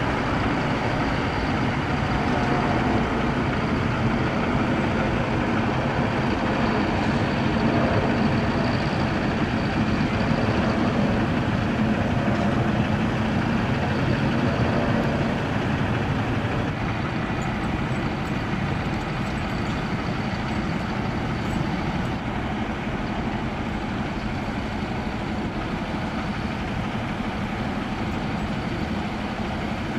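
A train rolling past on the rails: a steady rumble of wheels on track that eases slightly in the second half.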